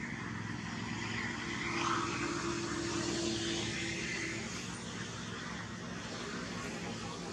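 Steady outdoor background noise with a low engine drone, and a held tone in it for a few seconds partway through.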